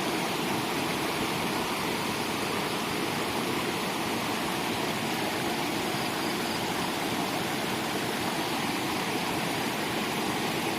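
Steady rush of flowing water, an even unbroken noise with no change in level.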